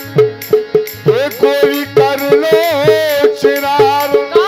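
Rai folk song played live: a steady drum beat with a jingling rattle on the beats, and a woman's high singing voice coming in about a second in.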